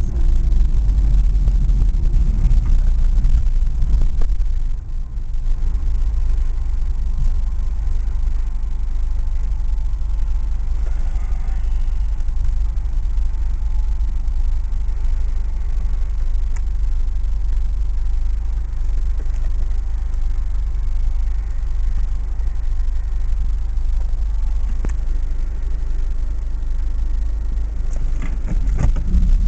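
Engine and road noise heard inside a moving LADA 2104: a steady low rumble that dips briefly about five seconds in.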